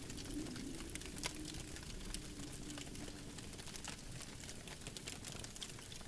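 Wood campfire crackling, with sharp irregular pops and snaps over a low steady rumble.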